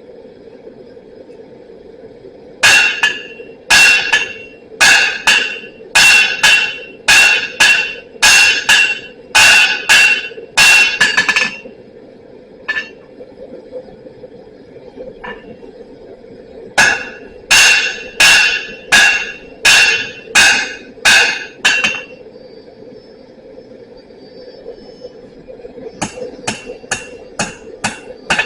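Blacksmith's hammer striking steel on an anvil, each blow ringing: a run of about two blows a second, a pause with a couple of single taps, a second run, then a few quicker, lighter taps near the end. A steady hum runs underneath.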